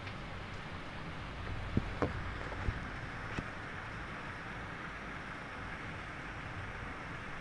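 Steady rain falling, an even hiss with a low rumble beneath it. A few separate louder drops tap close by about two to three and a half seconds in.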